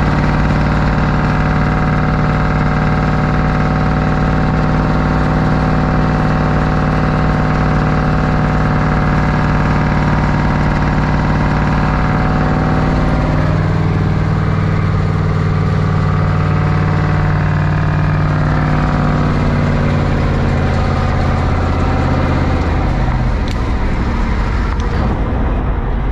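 Cummins V-555 "Triple Nickel" V8 diesel of a 1972 Brockway 358 truck running steadily under way, heard from inside the cab. The engine note changes about halfway through and again near the end.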